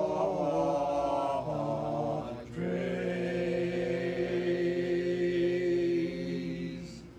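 A group of voices chanting in monk style on long held notes: a short phrase with a change of pitch, a brief break, then one note held about four seconds that fades away near the end.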